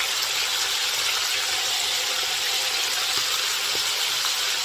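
Flour-coated calamari deep-frying in hot oil, a steady loud sizzle.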